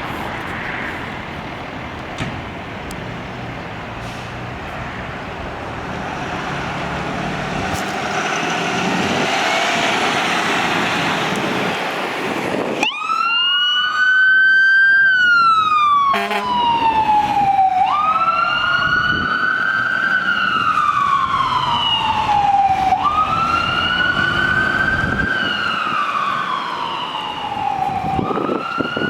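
Fire engine and ambulance electronic sirens on wail, passing by. The siren starts faint under road and traffic noise, then grows loud about halfway through with slow rising-and-falling sweeps about every five seconds, broken off briefly once.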